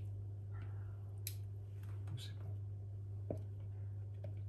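A steady low hum with a few light clicks, the sharpest a little after three seconds in, and brief soft speech.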